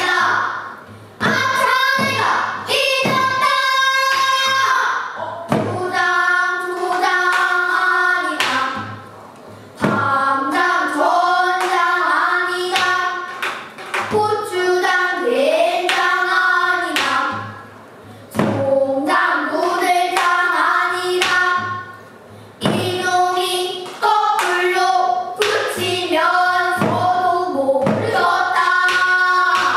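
Group of children singing pansori together in sung phrases separated by short breaths, punctuated by sharp knocks.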